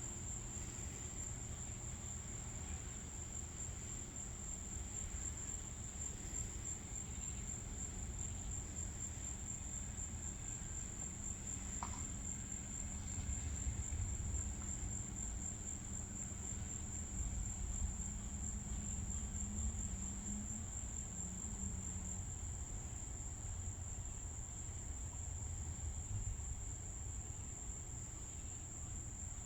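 Crickets chirping in a steady, high, continuous trill over a low rumble.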